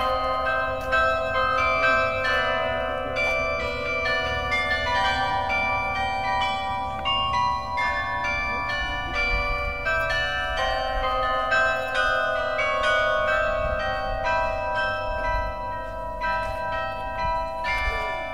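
Carillon of 49 bronze tower bells being played, single bell notes struck one after another and ringing on over each other, while the instrument is being tuned.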